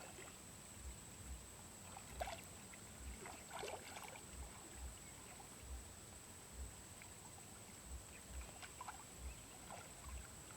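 Faint sloshing and small splashes of shallow water, as of someone wading and handling the water in a flooded rice paddy, with soft low thumps every half second to a second.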